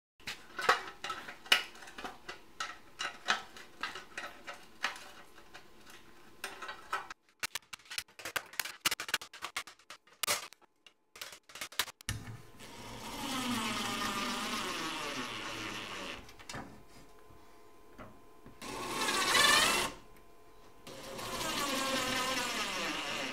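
A run of sharp clicks and knocks, then a cordless drill running in three bursts, its motor whine rising and falling in pitch as it drives screws into a licence plate.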